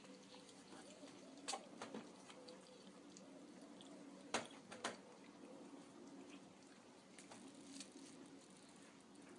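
Kittens play-fighting on a shaggy rug: faint patter and scuffling, with a few sharp clicks and knocks, the loudest two close together about four and a half seconds in, over a low steady hum.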